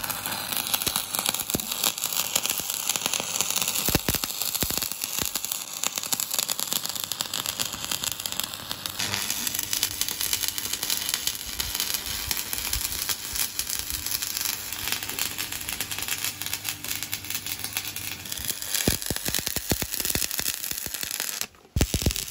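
Stick (shielded metal arc) welding on steel: the arc of a coated electrode crackling and sizzling steadily as a bead is run. It cuts out for a moment near the end.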